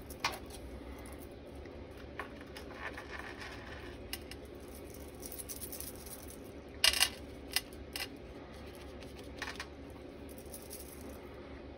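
A small paintbrush dabbing and scraping wet pigment on a glass craft mat, with paper being handled. There are scattered light taps and scrapes, and the loudest is a quick pair of taps a little past the middle.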